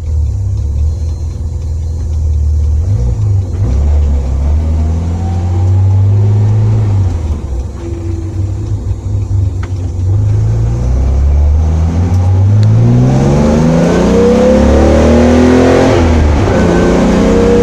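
Opel Commodore A straight-six engine heard from inside the car: it runs at low revs while the car rolls out, then accelerates hard with the revs climbing steadily, drops sharply at a gear change near the end and climbs again.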